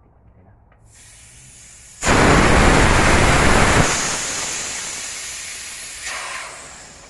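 Compressed air hissing out of the California Air Tools 8010 compressor's 8-gallon steel tank through its drain valve, draining moisture. A faint hiss about a second in turns into a sudden loud rush about two seconds in, then tapers off gradually as the tank pressure drops.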